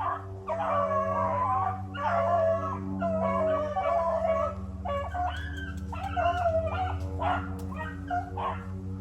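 A pack of rabbit hounds baying and howling, several voices overlapping in drawn-out wavering calls, as the dogs run a rabbit's trail.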